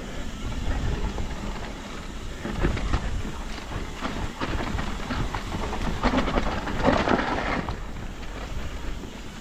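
Mountain bike descending a rough dirt trail, heard from an action camera riding on the bike or rider: tyres rolling and crunching over dirt and rocks, with steady rattling and knocking from the bike. The noise swells to its loudest about seven seconds in.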